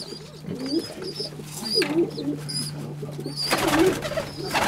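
Fantail pigeons cooing in repeated wavering calls, with a burst of wing flapping about three and a half seconds in.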